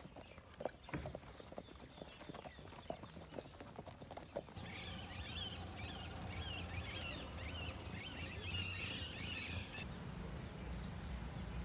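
Hooves of several ridden horses walking on a dirt track, an uneven clip-clop of knocks. About four and a half seconds in the sound changes abruptly to birds chirping over a low rumble, and near the end to a steady high-pitched tone.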